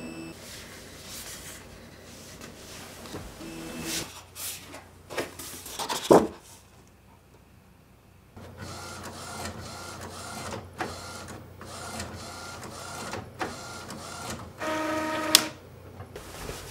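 Epson SureColor P800 inkjet photo printer at work: its motors run steadily with scattered clicks. A sharp knock comes about six seconds in, then a brief lull. The running resumes with a click about once a second and a short motor whine near the end.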